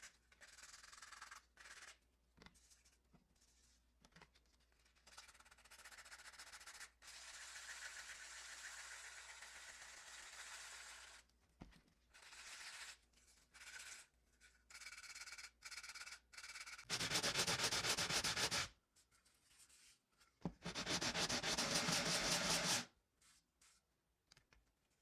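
Sanding a white-cement casting: abrasive rubbing in short, irregular strokes, then two louder, longer stretches of rapid scraping about two-thirds of the way through.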